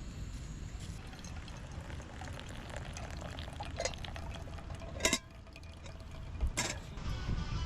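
Liquid pouring with small handling clicks over a low background rumble, and two sharp knocks about five and six and a half seconds in.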